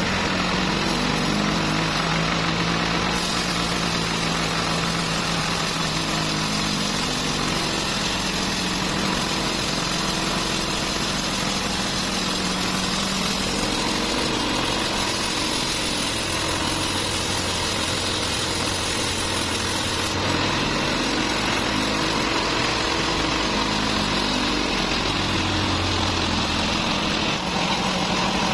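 Large vertical band sawmill running and cutting through a big trembesi (rain tree) log: a loud, steady machine drone with the noise of the blade in the wood, its low pitch shifting slightly as the load changes.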